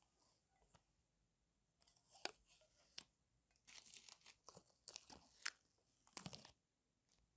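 Faint, scattered handling sounds of small parts: sharp clicks and short scrapes and rustles in irregular clusters, the loudest clicks about two seconds in and again past the middle.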